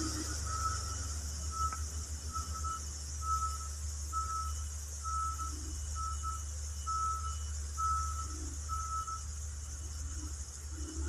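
Motor grader's reversing alarm beeping at an even pace, a short single-pitch beep about every half second, over the low drone of its diesel engine; the beeping stops near the end.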